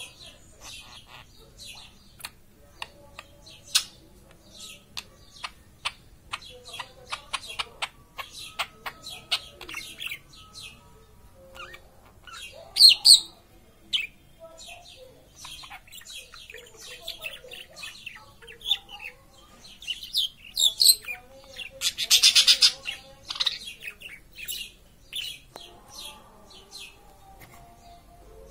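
Budgerigar chirping and chattering in reply to sparrow chirps: many short, sharp chirps, a few loud ones about halfway through, and a dense burst of rapid chatter some 22 seconds in.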